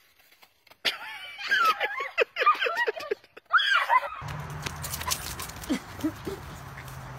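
A burst of rapid, shrill, swooping cries and shrieks from a child-and-chicken chase, about three seconds long. It gives way to a steady low hum and hiss with a few short, faint calls.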